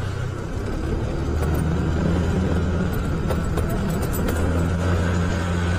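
Motorcycle engine running steadily while riding, its low hum rising slightly about a second and a half in.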